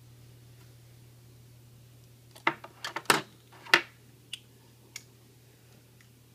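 Close handling noise: a quick run of sharp clicks and knocks starting about two and a half seconds in, then two lighter clicks, over a steady low electrical hum.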